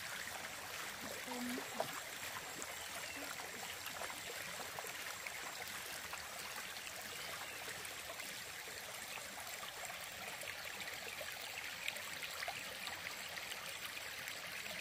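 Steady rush of running water, like a stream, with a few faint short chirps over it.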